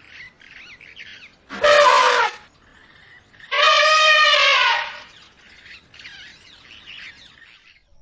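African elephant trumpeting twice: a short blast about a second and a half in, then a longer call around four seconds in that drops in pitch as it ends. Birds chirp faintly in between.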